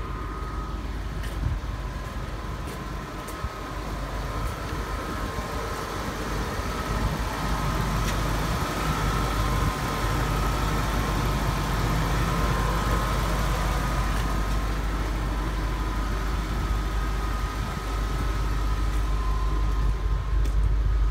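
2000 Ford F-150 pickup's engine idling steadily, growing louder about seven seconds in.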